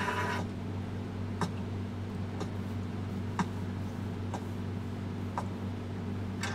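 A clock ticking evenly, about one tick a second, over a low steady hum.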